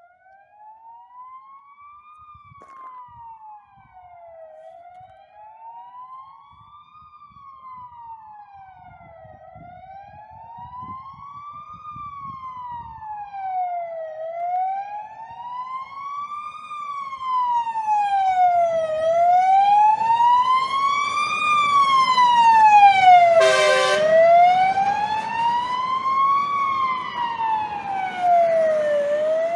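Fire engine siren in a slow wail, rising and falling about every five seconds and growing steadily louder as the truck approaches. A short horn blast sounds about three-quarters of the way through.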